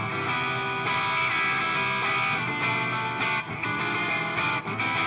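Distorted electric guitar playing chords in a J-rock style.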